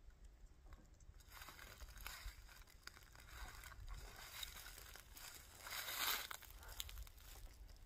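Rustling and crinkling in three swells a second or two apart, the last the loudest.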